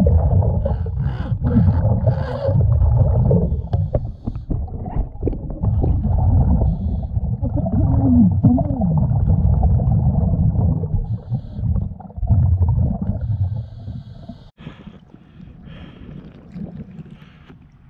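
Heard through an underwater camera: a scuba diver's exhaled bubbles rumbling in repeated bursts, one breath after another. About 14.5 seconds in the camera breaks the surface, the rumbling stops and only quieter water splashing is left.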